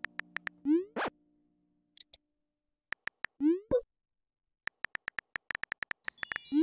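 Phone text-messaging sound effects. Quick keyboard tap clicks give way to a short rising pop about a second in as a message sends. A second rising pop comes about three and a half seconds in as a reply arrives, then a run of taps and another pop at the very end.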